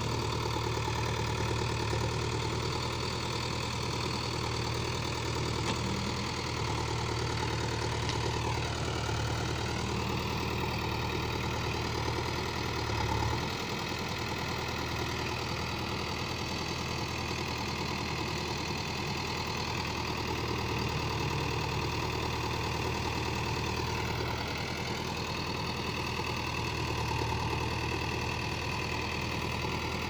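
Diesel engine of a JCB 3DX backhoe loader running steadily as its backhoe loads soil into a tractor trolley. The engine pitch dips and recovers twice, about a third of the way in and again near the end.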